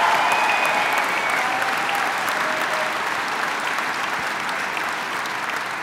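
Crowd applauding and cheering, with a few whistles near the start, the applause slowly fading.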